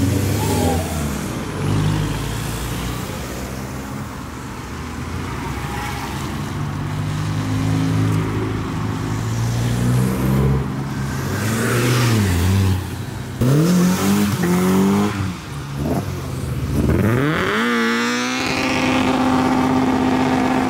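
Several modified cars drive past one after another, their engines revving and sweeping up and down in pitch as they pull away. Near the end one engine holds a steady pitch.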